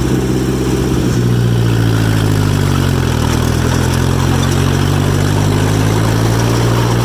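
John Deere 1010 crawler's four-cylinder engine running in fourth gear. Its pitch sags about three seconds in, then climbs back.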